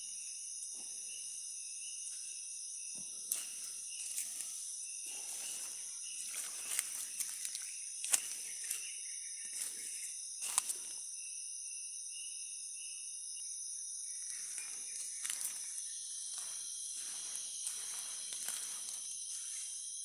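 Rainforest insect chorus: a steady high-pitched drone of insects with a repeating pulsed chirp over it. Scattered snaps and rustles of leaf litter and twigs underfoot come and go, busier in the last few seconds.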